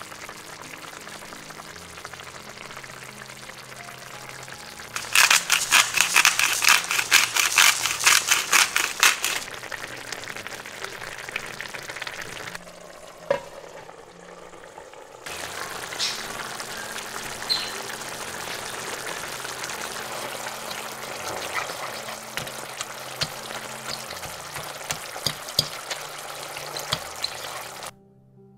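Chicken legs sizzling and bubbling in their juices in a frying pan, with scattered pops. About five seconds in comes a loud run of quick rhythmic strokes for about four seconds as salt and pepper are added over the pan; near the middle a single light clink as the glass lid goes on, after which the sizzling carries on under it.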